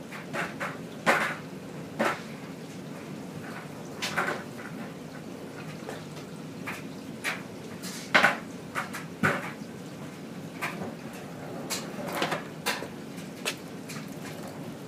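Skateboard and scooter clattering on a hard floor while being ridden: irregular knocks and clacks, a couple of dozen scattered through, over a steady low hum.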